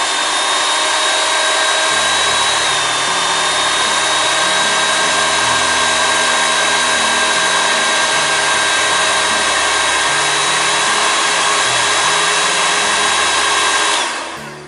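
A 1500-watt two-speed hot air gun blowing on its low setting: a steady rush of air with a steady high whine, shrinking heat-shrink tubing over soldered wire joints. It stops near the end.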